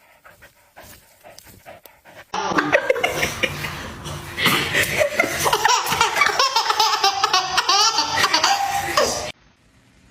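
People laughing hard. The laughter starts suddenly about two seconds in and cuts off abruptly near the end, after a quiet opening with a few faint clicks.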